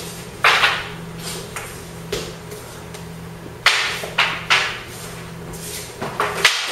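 Long wooden spear shafts clacking against each other in sparring: one sharp knock about half a second in, three quick knocks near the middle, and two more near the end, each ringing out briefly over a steady low hum.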